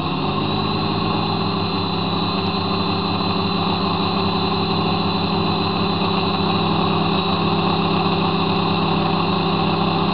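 A model airplane's motor and propeller running at a steady throttle, picked up by a camera mounted on the plane, a constant droning hum with a noisy rush over it.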